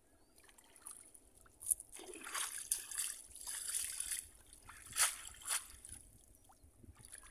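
Shallow floodwater sloshing and splashing around a conical bamboo fish trap as it is worked and lifted, with water trickling off it. Sharp splashes come a little before two seconds in and twice around five seconds.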